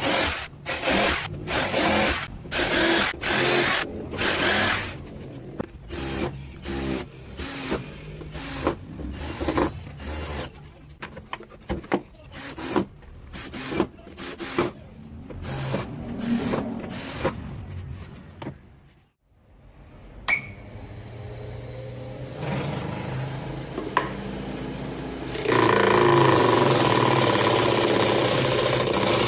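Hand tool scraping in quick back-and-forth strokes, about two a second, over material. After a brief pause a small electric motor hums steadily, and about 26 seconds in a louder, harsher steady running noise starts up, as of a power tool cutting or sanding.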